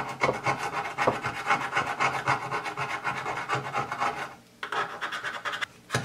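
Solder wick scrubbed back and forth under a 100-watt soldering iron's tip on the floor of a 1965 Fender Champ's chassis: a fast, scratchy rubbing of many quick strokes, pausing briefly about four and a half seconds in. This is wick mopping up old solder to leave a clean surface for new leads.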